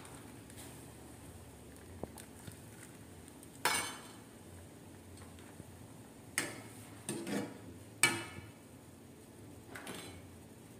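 A utensil clinking against an aluminium cooking pot several times, each knock ringing briefly, as the soup is tended.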